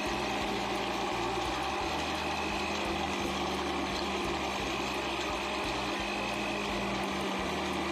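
Electric countertop blender running steadily at one speed, its motor giving a constant hum as it blends a frothy drink in the jug.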